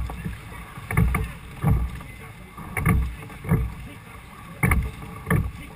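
Six-oared wooden pilot gig being rowed hard: each stroke brings two sharp knocks of the oars working against the thole pins. There are three strokes, about one every 1.8 seconds, over steady wind and water noise.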